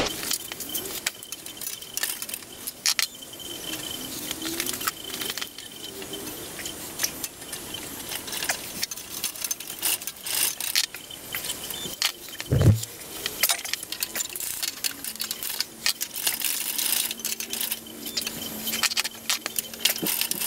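Hand tools working on the bandsaw's steel drive pulley and gearbox housing: irregular metallic clicks, clinks and scrapes, with one loud dull knock about halfway through.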